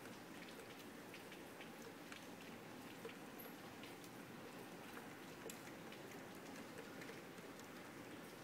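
Rain falling steadily and faintly, with scattered drops ticking sharply among the even patter.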